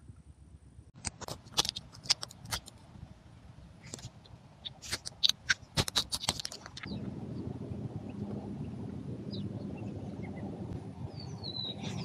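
A cat's claws scratching and clicking on tree bark, a quick run of sharp scrapes. About seven seconds in this gives way to a steady rustle of dry fallen leaves as the cat moves through them. A few faint bird chirps come near the end.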